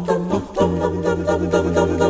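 Background music: an a cappella vocal group singing in close harmony over a held low bass note.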